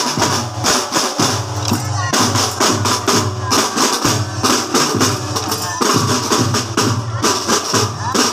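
Drum band music: drums keep a steady, even beat under held pitched tones.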